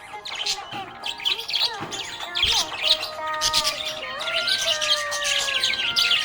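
Budgerigars chirping and twittering in a rapid, continuous stream, over background music with held notes that step up and down in pitch.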